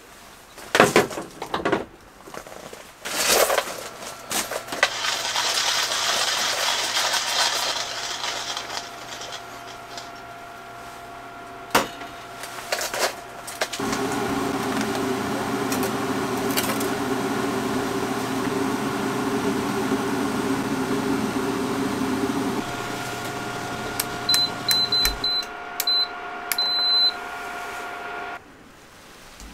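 Water hissing from a hose nozzle into a stainless kettle, then a Koselig electric hob humming steadily as it heats the kettle. Several short high beeps sound near the end, just before the hum cuts off.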